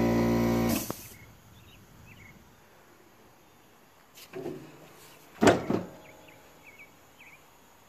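A steady machine hum cuts off abruptly about a second in. Then the riding mower's seat is tipped up off the battery compartment, making a dull thud about four seconds in and a louder plastic-and-metal clunk with a short rattle about a second later. Faint high chirps come in between.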